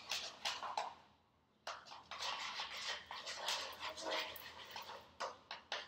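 A spoon stirring a thick glue-and-shaving-cream slime mixture in a ceramic bowl, with irregular scrapes and wet strokes. It stops briefly about a second in, then starts again suddenly.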